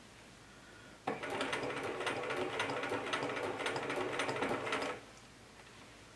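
Bernina 1080 Special sewing machine fitted with a walking foot, stitching fabric: it starts about a second in, runs steadily with a rhythmic clicking, and stops about four seconds later.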